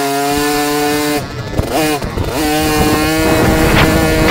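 Husqvarna TC 50's 50cc two-stroke single-cylinder engine heard onboard, held at high revs, the throttle briefly chopped and blipped about a second in, then opened again and held steady. Wind rush on the microphone builds near the end.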